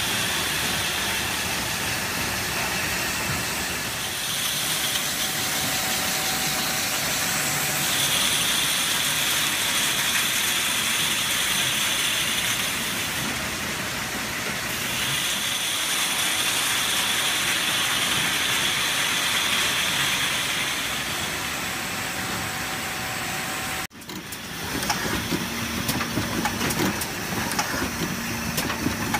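Machinery of a brake fluid bottling line running: a steady mechanical din with long stretches of high hiss. Near the end it breaks off and gives way to the clatter of a cardboard case packing machine over a low steady hum.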